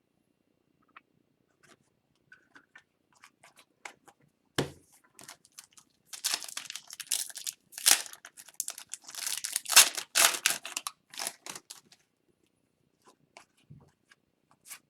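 Trading cards and their foil pack wrappers being handled: scattered light clicks and a thump, then several seconds of crinkling and rustling in the middle.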